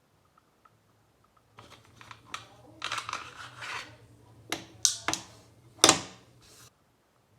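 A Glock 17 air pistol being handled: a run of clicks and rattles, then several sharp, loud clicks, the loudest near the end. A faint low hum runs under it.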